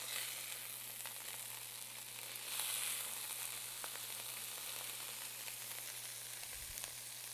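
Ground beef (85/15) sizzling steadily as it sears on its freshly flipped side in a hot nonstick skillet. The sizzle swells briefly about two and a half seconds in.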